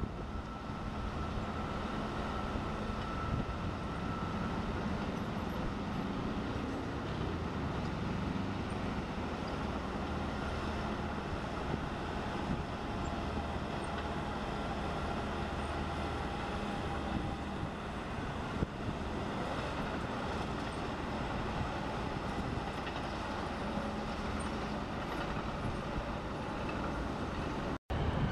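Diesel engines of heavy earthmoving machines, a wheel loader and a crawler dozer, running steadily as they work dirt. The sound breaks off sharply for a moment near the end.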